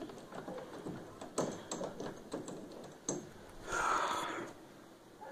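Phone handling noise: fabric rubbing over the microphone as the phone is moved, with a few light knocks and a louder rustle about four seconds in.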